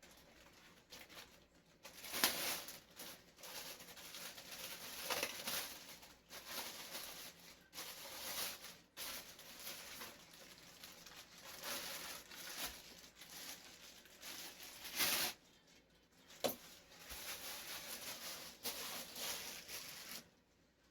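Packaging being handled during unboxing: irregular rustling and crinkling of plastic wrap and box material, with a few sharper knocks as parts are lifted out.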